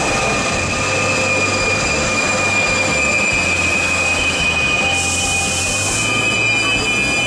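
ÖBB Eurocity coaches rolling past close by on the platform track as the train slows in, with a steady rumble and a high-pitched wheel squeal that drops slightly in pitch. A short hiss sounds about five seconds in.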